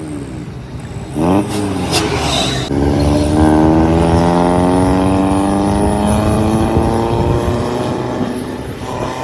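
A diesel vehicle engine on a mountain road revs up sharply about a second in, followed by a brief loud rush of noise. Then a strong, steady engine note slowly drops in pitch over several seconds.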